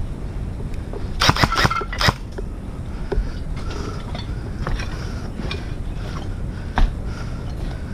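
Wind buffeting the microphone, with a quick, uneven run of sharp mechanical clicks and clinks about a second in and one more sharp click near the end.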